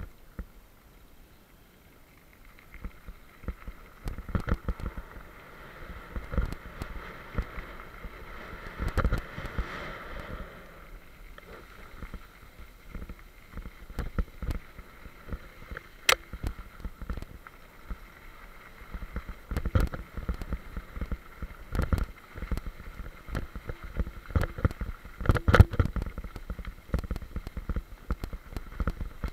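Bicycle rolling down a dirt and gravel trail: tyre noise on the loose surface with frequent knocks and rattles as the bike jolts over bumps, plus wind rumble on the mounted camera's microphone. The knocks come thicker and louder in the second half as the speed picks up.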